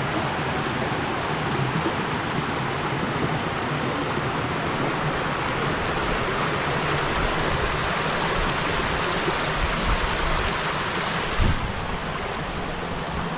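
Water running and splashing in a shallow travertine channel, a steady rushing. Near the end there is a knock, and after it the rushing sounds duller.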